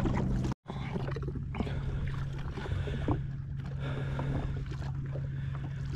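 Jet ski engine idling steadily as a low, even hum. The sound cuts out for a moment about half a second in, then carries on unchanged.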